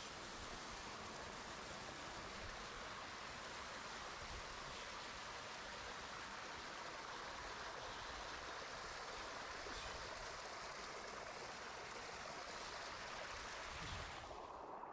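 Mountain stream water rushing and splashing down small cascades over rock, a steady noise. Near the end the rushing abruptly becomes duller.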